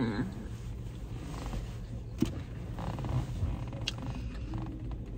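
A person chewing a mouthful of rice-and-seaweed kimbap with the mouth closed: soft wet mouth sounds and a few small clicks, the sharpest about two seconds in, over a low steady rumble. It opens on the falling end of an appreciative hummed "mmm".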